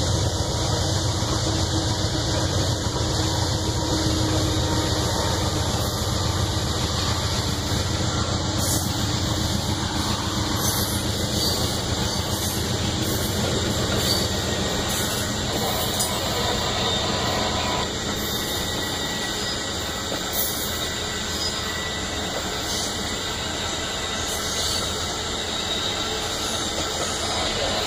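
Amtrak Auto Train's bilevel passenger cars rolling steadily past: continuous wheel-on-rail noise, with short clicks of wheels over rail joints from about a third of the way in.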